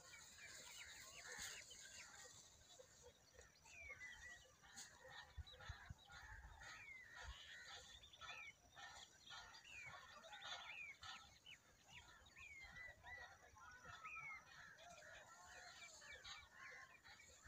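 Faint chorus of wild birds: many mixed chirps, with one bird repeating a short falling call about every two seconds.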